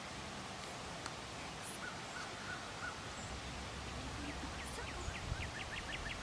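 Outdoor field ambience: a steady faint hiss with birds calling. A few short notes sound about two seconds in, then a quick run of short falling chirps, about four a second, through the second half.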